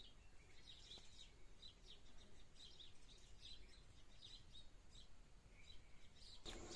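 Faint birds chirping: scattered short, high calls over near silence.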